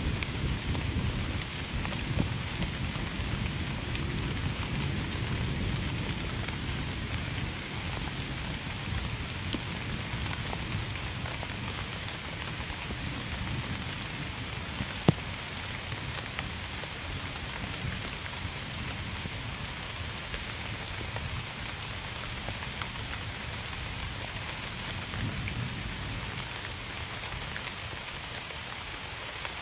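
Steady rain falling on a surface, with scattered louder individual drop strikes and one sharp loud drop about halfway through. A low rumble underneath is stronger in the first part and fades away.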